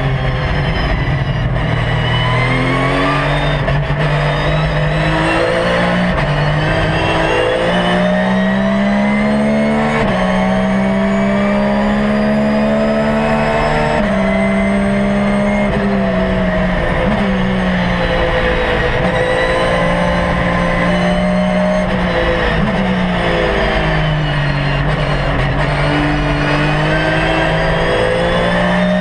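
Porsche 911 GT3 R's naturally aspirated flat-six, heard from inside the cockpit, rising and falling in pitch as the car accelerates and slows, with sudden steps in pitch at repeated gear changes.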